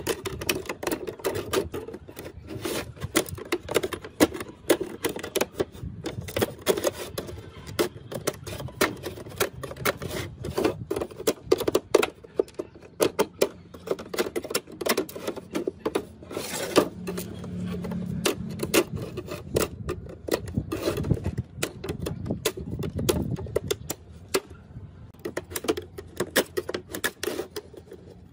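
Dense, irregular run of small clicks and scraping from hand work on laptop parts.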